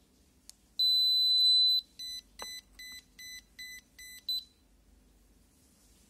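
BlueFly variometer's piezo buzzer beeping as the unit is switched on: a click, one long high beep lasting about a second, then six short, lower beeps about 0.4 s apart, ending with a brief chirp.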